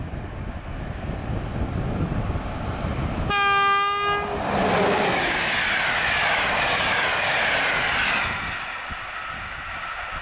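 An electric-locomotive-hauled passenger train passing close by. A low rumble as it approaches, then one horn blast about a second long, then the locomotive and coaches rush past with a loud rolling noise whose tones fall in pitch. The noise dies down about two seconds before the end.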